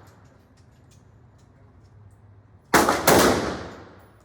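Two gunshots about a third of a second apart, a little under three seconds in, each followed by a long echoing decay. The fading tail of an earlier shot trails off at the start.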